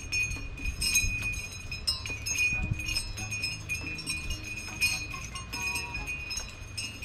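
Close-up chewing and wet mouth sounds of someone eating grilled shrimp off a skewer: many small irregular clicks and smacks, over a steady high tone.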